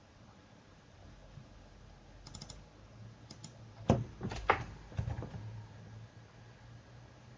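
Sparse typing and clicking on a computer keyboard, a few quick light taps, then a handful of sharper, louder key clicks about four to five seconds in, over a faint low hum.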